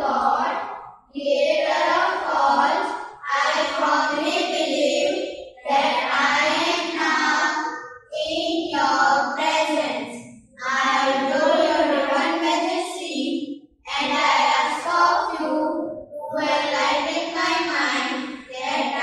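A small group of children singing a prayer together in unison, in phrases of about two seconds with short breaks between them.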